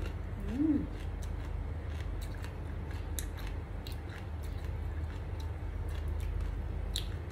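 Close-up eating sounds: scattered sharp wet clicks of chewing and lip smacks from a mouthful of cha-om omelette and rice, with a short hummed 'mm' about half a second in. A low steady hum runs underneath.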